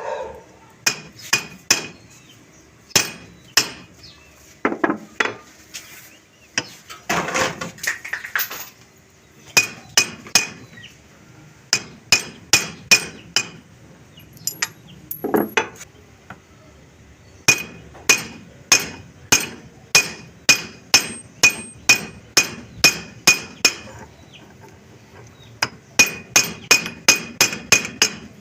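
Small hammer tapping on a brass padlock, metal on metal, refitting the strip that closes the lock body after the levers were set. The taps come in runs of quick, even strikes, each with a short metallic ring, separated by short pauses.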